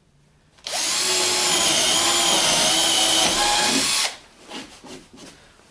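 Cordless drill with a 6 mm bit boring through a board: it starts about half a second in, runs steadily with a motor whine for about three and a half seconds, and stops.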